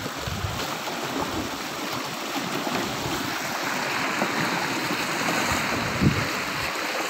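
Small waves washing against a rocky shoreline, a steady wash of water, with a short thump about six seconds in.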